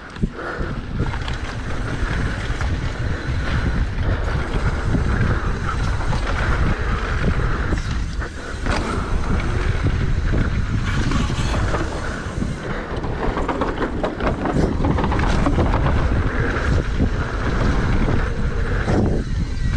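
Wind rushing over the microphone and knobby tyres rumbling on loose, packed dirt as a Santa Cruz V10 downhill mountain bike runs fast down a jump line, with a few sharp clatters from the bike over bumps.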